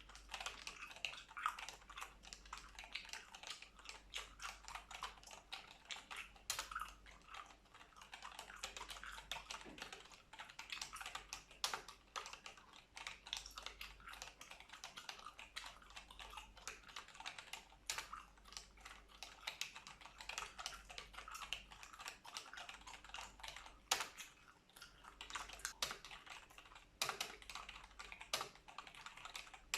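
Computer keyboard typing close up: a fast, irregular run of key clicks with a few louder strikes scattered through, and gum being chewed along with it.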